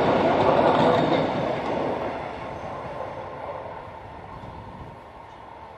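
BLS S-Bahn electric commuter train passing close by on the rails, then running away from the crossing. Its wheel and running noise is loud for about the first two seconds and then fades steadily as the train recedes.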